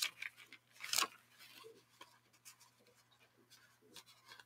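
Bible pages being leafed through: a couple of short, soft paper swishes, the loudest about a second in, then a few faint light taps and rustles.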